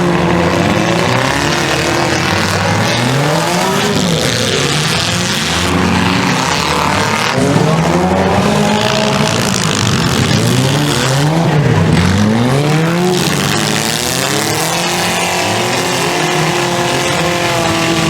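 Several demolition derby cars' engines revving up and falling back, overlapping one another as the cars race the figure-eight track.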